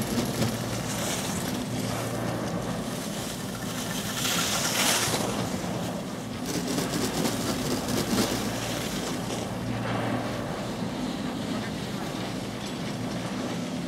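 A steady low mechanical hum, with a brief hiss about four seconds in like skis scraping over packed snow as a skier passes close.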